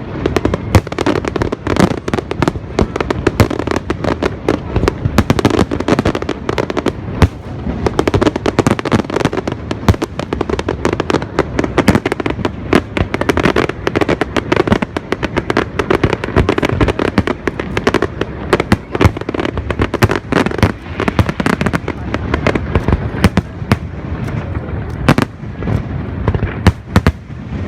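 Fireworks display: a dense, continuous run of sharp bangs and crackles in quick succession, thinning slightly near the end.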